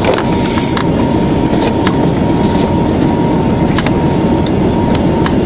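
Li-2's Shvetsov ASh-62 nine-cylinder radial engines running at low power as the aircraft taxis, heard inside the passenger cabin as a loud steady drone, with a thin steady tone above it and a few light clicks.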